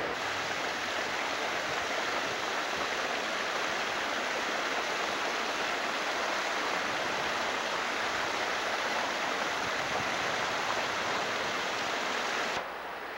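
Steady rushing of flowing river water, even and unbroken, dropping off abruptly near the end.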